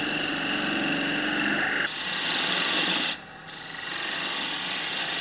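A skew chisel shearing a spinning maple spindle on a wood lathe makes a steady hissing cut. The cut gets louder and brighter about two seconds in, stops briefly a little after three seconds, then resumes.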